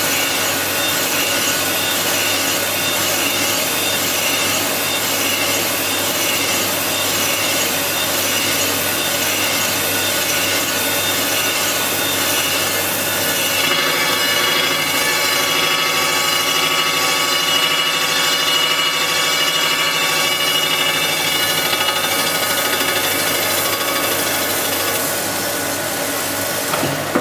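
Crankshaft grinder's abrasive wheel grinding a main journal of a 305 Chevrolet crankshaft on a roughing pass, cleaning up the journal's radius and wall. It is a steady grinding hiss with a hum of steady tones under it, and the tone shifts about halfway through.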